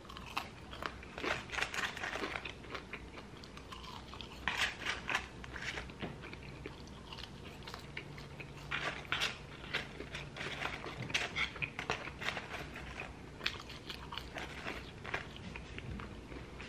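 A person eating McDonald's food close to the microphone: biting and chewing, heard as irregular short mouth clicks and smacks.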